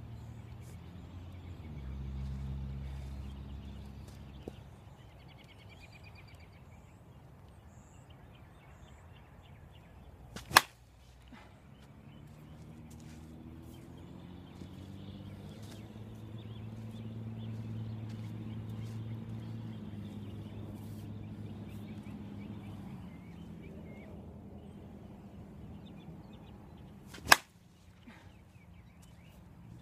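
Two sharp cracks of an Avarice G2 softball bat driving 44-COR softballs off a batting tee, one about ten seconds in and one near the end.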